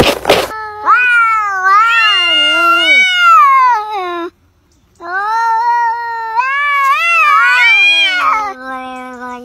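Domestic cat yowling: two long, wavering yowls of about three seconds each with a short gap between them, then a lower yowl that slides down in pitch near the end. A brief burst of noise at the very start.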